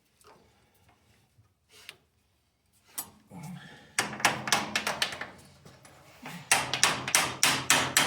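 Repeated sharp metal-on-metal blows from a hand tool used as a hammer while reassembling the clutch of a 1929 McCormick Deering 22-36 tractor. The blows come in two quick runs of about three strikes a second, starting about four seconds in, after a few faint clicks.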